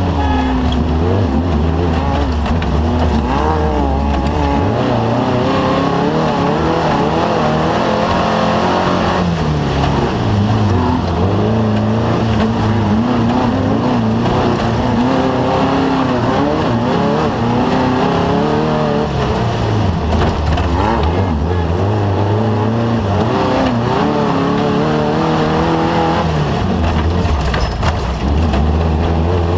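Off-road desert race vehicle's engine running hard, its pitch climbing and dropping again and again through the whole stretch.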